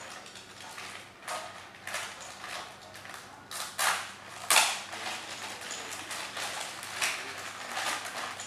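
Clear plastic packaging bag crinkling and rustling in the hands as its seal is opened, in irregular bursts. The loudest crackle comes about halfway through.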